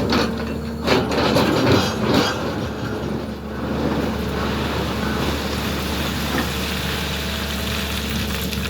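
SANY excavator's diesel engine running steadily, with loud scraping and knocks from about one to two seconds in as the machine digs.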